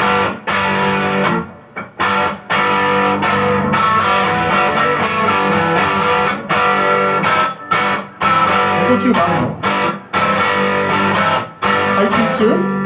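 Rock band playing live, led by electric guitar, the music cutting out briefly several times and coming back in on hard hits.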